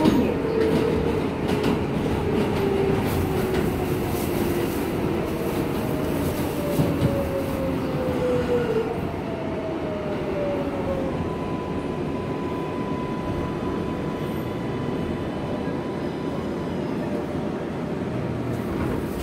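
R142A subway train rumbling on its rails as it brakes into a station, its motor whine gliding down in pitch over the first half. From about halfway a steady higher tone holds over the rumble as the train slows toward a stop.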